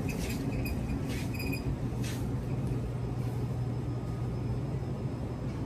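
Shopping cart rolling across a store floor, a steady low rumble picked up through the cart frame, with a few short rattles in the first couple of seconds.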